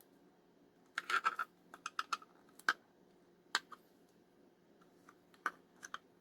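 Small sharp clicks and scrapes of hard plastic being worked by hand: the cable's strain relief bushing being pushed and prised in the sewing machine pedal's housing. A quick run of clicks comes about a second in, then scattered single clicks.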